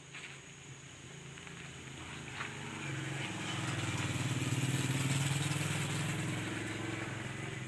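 A motor vehicle engine passes by on the road, growing louder to a peak about halfway through and then fading away.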